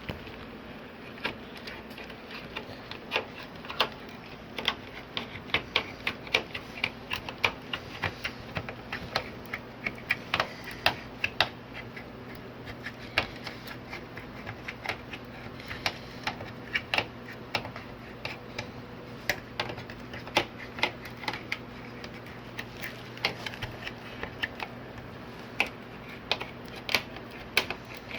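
Many irregular light clicks and taps from the TV's LED backlight strips and metal back panel being handled and worked on, over a steady low hum.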